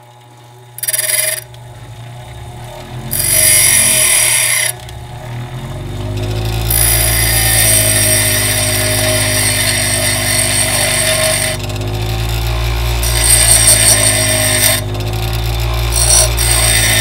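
Bench grinder running while a steel twist drill bit is pressed against its coarse wheel, grinding away the back of the bit: a short grinding pass about a second in, a longer one a few seconds later, then long, nearly continuous grinding with brief lifts off the wheel. The motor's hum wavers under the pressure; the owner finds the grinder too weak for the job.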